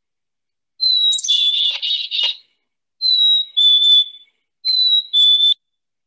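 Black-capped chickadee: a chick-a-dee call with a quick run of rough dee notes about a second in, then its whistled fee-bee song twice, each a clear higher note dropping to a lower one.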